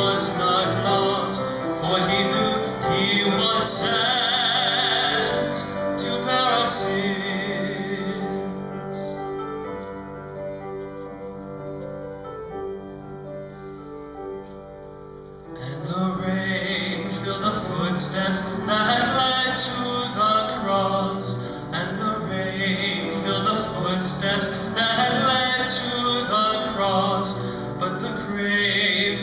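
A song sung with instrumental accompaniment. About a third of the way in the voice stops for a quieter instrumental passage of held notes, and about halfway through the singing comes back louder.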